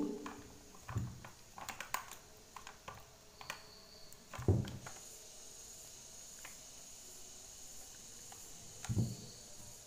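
Vegetable peeler shaving a bar of chocolate into curls in a small enamel pot: faint scratchy strokes and light clicks, with a few soft thumps from handling.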